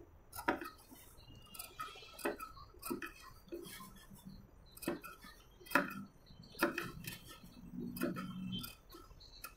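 Large tailoring shears snipping small clips into a blouse neckline's seam allowance around its curves: short, crisp snips at uneven intervals, roughly one a second.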